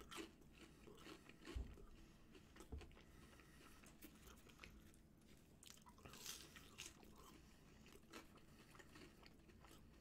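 Faint chewing and crunching of a bite of fried chicken, with small mouth clicks and a couple of soft low thumps in the first few seconds.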